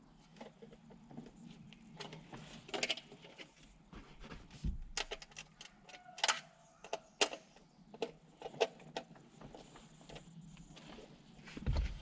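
Irregular small clicks, taps and scrapes of screws, a screwdriver and mounting parts being handled while the last screws go into a double-DIN radio mounting bracket. A low thump comes about halfway through and another just before the end.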